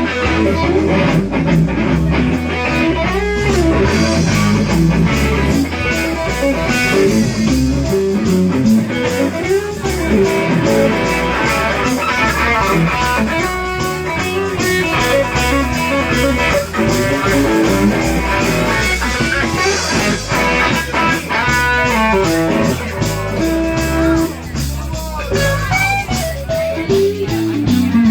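Live rock band playing an instrumental passage: electric guitar playing a lead line with bent notes over bass and a steady drum beat.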